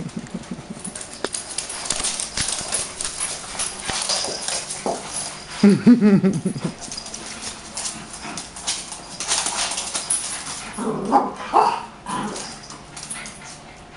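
Small dogs play-fighting on a wooden floor: claws tapping and scrabbling on the wood throughout, with a growling outburst about six seconds in and higher yips around eleven seconds.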